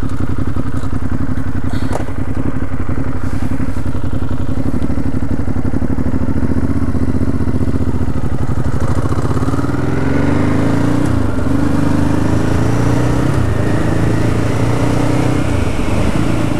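Ducati Hypermotard's L-twin engine running at steady low revs while the bike rolls along. From about ten seconds in, the revs climb and drop several times as it accelerates through the gears.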